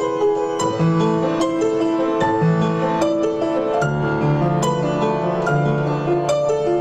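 Solo piano playing a melody set to the digits of pi, each digit given a note of a harmonic minor scale, the right hand playing the tune over left-hand harmony.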